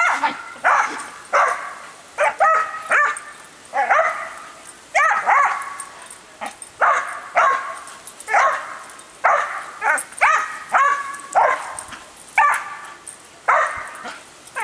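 Dog barking over and over in excited play at the water spray from a hose sprayer: about twenty sharp barks, often in quick pairs or triples, with short gaps between.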